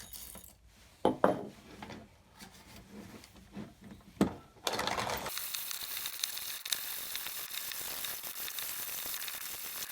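A few sharp knocks and clicks, then from about halfway a steady gritty crunching as a vintage German manual conical burr coffee grinder, thought to be a Burgmühle, is cranked and grinds coffee beans. The burrs are set to their finest, just touching.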